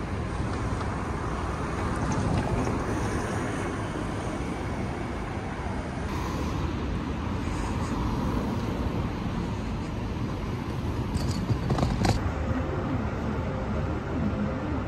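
City street ambience with road traffic going by. The background changes abruptly twice, about six and twelve seconds in.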